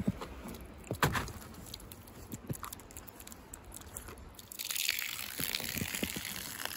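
Footsteps crunching in snow, sharpest at the start and about a second in, with lighter crunches after. From about four and a half seconds in a steady hiss of rustling takes over.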